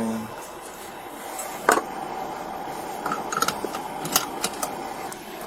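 Scattered sharp clicks and knocks from handling inside a patrol car, over a faint steady hum: a single knock, then a quick run of small clicks, then two more clicks.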